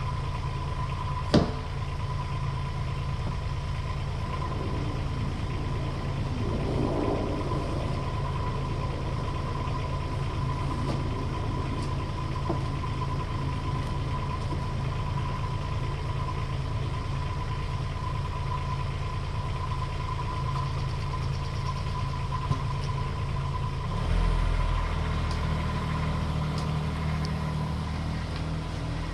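Kubota U10 mini excavator's diesel engine idling steadily, with a thin steady high tone over it and a single sharp knock about a second in. Near the end the engine note gets heavier and louder as the machine starts working to move the tank.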